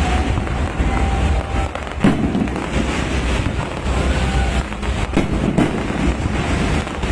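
Fireworks going off in a continuous barrage of bangs and crackling, with sharper loud reports about two seconds and five seconds in.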